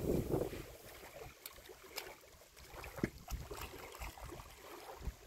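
Wind buffeting the microphone, dying away about half a second in, then faint scattered clicks and ticks.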